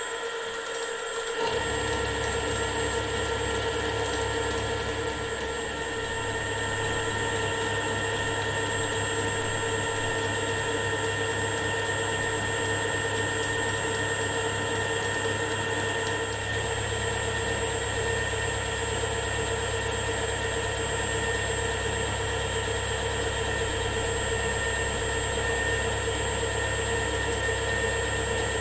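Milling machine spindle running steadily while a 12 mm high-speed steel roughing end mill takes a roughing pass, with a steady whine and several held tones. A lower hum joins about a second in and stays.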